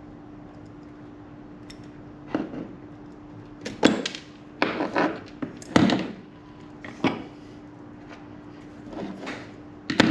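Irregular knocks and scraping from hand-tool work on a trolling motor power cable, as its jacket is sliced open, over a steady low hum.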